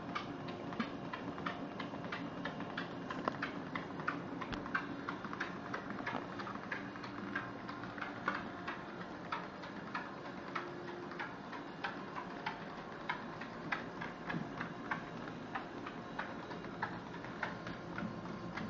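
A cocker spaniel's paws and claws tapping on a moving treadmill belt: an irregular patter of light clicks, a few a second, over the steady hum of the running treadmill.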